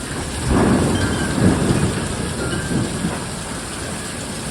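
Severe thunderstorm: steady heavy rain and wind, with a low rumble of thunder that breaks in about half a second in, swells a few times and rolls away over a couple of seconds.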